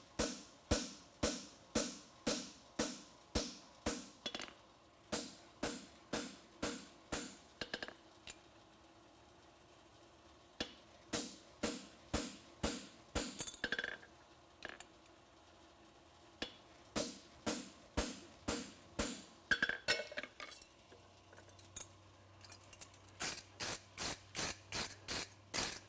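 Farrier's hand hammer striking a steel horseshoe on an anvil in steady runs of about two blows a second, each blow followed by a short metallic ring. The blows stop twice for a couple of seconds and come a little faster near the end.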